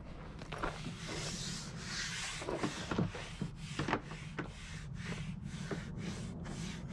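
Hand rubbing strokes against a hard surface, as in sanding. There are a few irregular scrapes at first, then a steady rhythm of about two to three strokes a second from the middle on.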